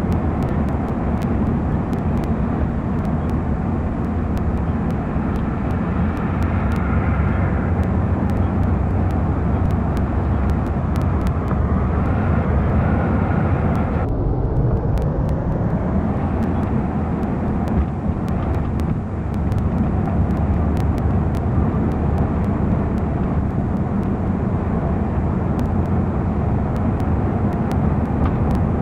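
Steady road and engine noise of a car driving along a city street, picked up from inside the moving car. The sound changes abruptly about halfway through.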